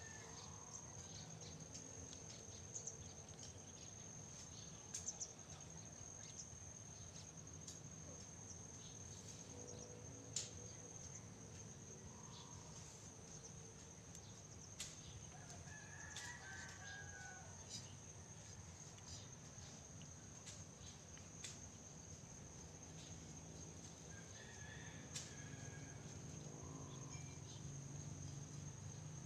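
Quiet garden ambience: a steady high insect trill, a rooster crowing faintly a few times, and small clicks as leaves are handled.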